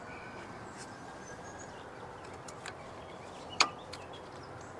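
Quiet background with a few faint ticks and one sharp click about three and a half seconds in, as hydraulic hose fittings are reconnected to the flail mower's flow restrictors.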